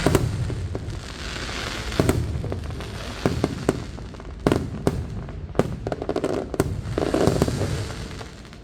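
Fireworks going off: a string of sharp bangs one after another, with a burst of crackling about seven seconds in, then fading near the end.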